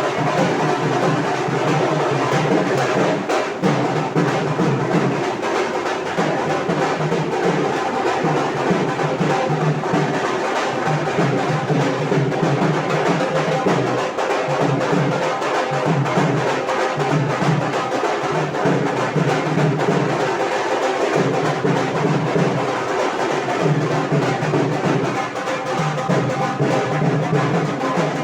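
Music with drums and percussion playing steadily, with a drum-roll-like pattern.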